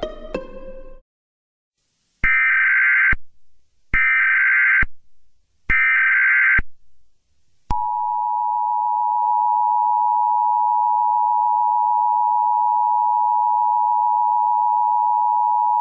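Emergency Alert System tones: three short buzzing bursts of SAME header data, each just under a second and evenly spaced, then the steady two-note EAS attention tone, held for about eight seconds. The last notes of music fade out in the first second.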